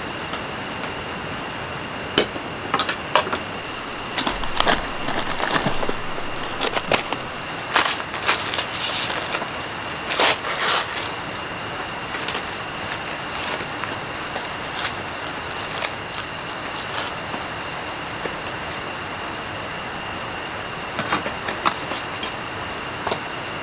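Steady hiss of rain, with handling noises on top: tongs and cookware clicking, and the crinkle of a plastic cracker wrapper being opened and handled. The clicks and crinkles come in clusters over the first half and again near the end.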